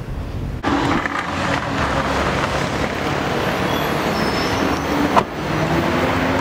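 Steady city street traffic noise from passing cars, with one sharp knock about five seconds in. A car cabin's low rumble is heard for the first half second.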